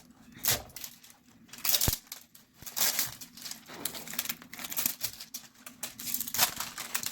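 Packaging crinkling and tearing as it is pulled open by hand, in irregular rustles with short pauses.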